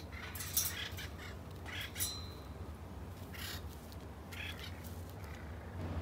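Parrots giving a few short, rough squawks and calls, spaced out over several seconds, with one brief high whistle-like note about two seconds in.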